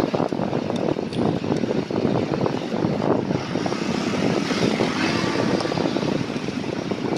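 Wind buffeting the microphone of a camera riding on a moving folding bike, a steady fluttering rush, with street traffic mixed in.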